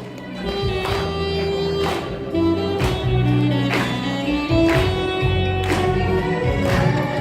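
Instrumental intro of a song's backing track: sustained bass notes and a melody line over a steady beat, with a drum hit about once a second.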